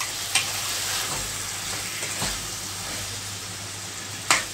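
Chopped tomatoes and spices sizzling in hot oil in a metal pan as they are stirred with a metal spoon. The spoon knocks against the pan a few times, loudest near the end.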